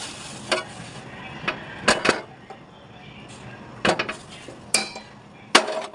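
A thin plastic bag being handled and crinkled at a kitchen counter, with several sharp clicks and knocks, several of them in quick pairs.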